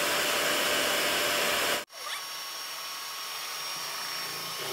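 Electric hand mixer running, its twin beaters whisking cake batter in a plastic bowl. The sound cuts off abruptly a little under two seconds in and comes back quieter and steadier, with a faint constant whine.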